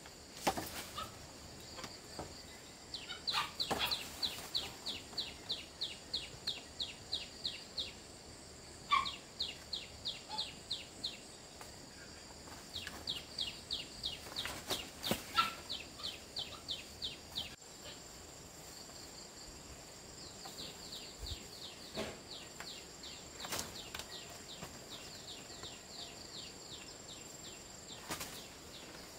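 Outdoor ambience: a steady high insect drone with a bird calling in runs of short, quick, falling chirps, about three a second. A few sharp knocks are scattered through.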